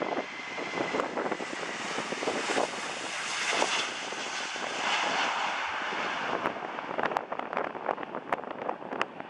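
Boeing 737-700's CFM56-7B turbofan engines at takeoff thrust as the jet rolls down the runway, lifts off and climbs away. The jet roar swells over the first few seconds and loses its hiss after about six seconds, and a thin high whine fades out within the first second or two.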